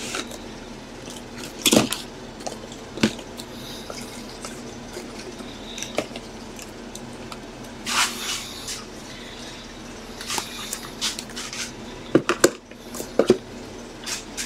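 Trading card boxes being handled and moved on a table: scattered taps and clacks as boxes are picked up and set down, with a few short rustles and a quick run of sharp taps near the end.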